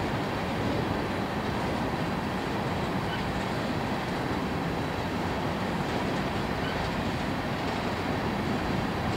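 An empty coal train of open-top hopper cars rolling past, giving a steady noise of steel wheels on rail.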